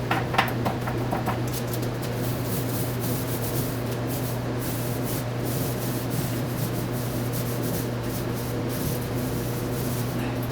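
Paint roller being worked up and down a wall, a steady wet rubbing, swishing noise, over a steady low hum.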